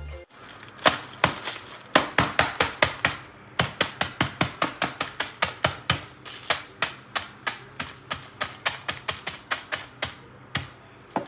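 Hand-held manual can opener cranked around a small metal can: a fast, even run of sharp clicks, about four or five a second, with a couple of brief pauses as the grip is reset.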